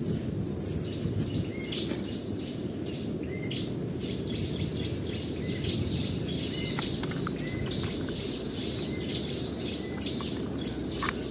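Small birds chirping in short, repeated calls over a steady low outdoor rumble, with a few faint knocks.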